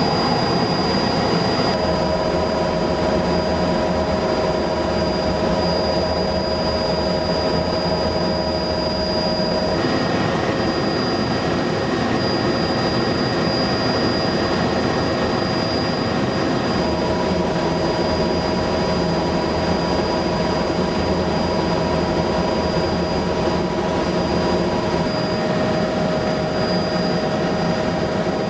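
Helicopter heard from inside the cabin: steady engine and rotor noise with a high, even whine.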